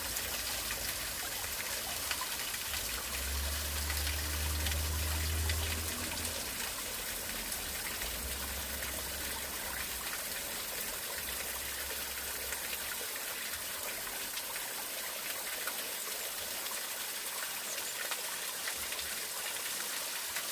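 Mountain valley stream running over rocks, a steady rushing and trickling of water. A low rumble rises under it a few seconds in and comes and goes until about two-thirds of the way through.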